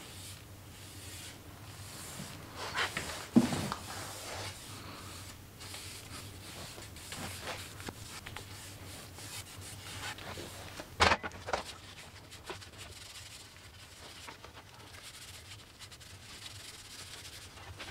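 Rag rubbing back and forth over a laminated wooden canoe paddle blade, wiping on finish. Two brief knocks sound about three seconds in and again about eleven seconds in.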